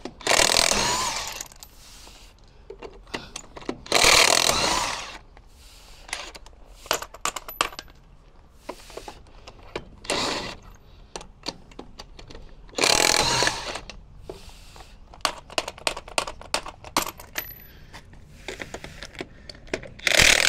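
Impact wrench running lug nuts on or off a truck wheel in five short bursts, with lug nuts and tools clinking between them.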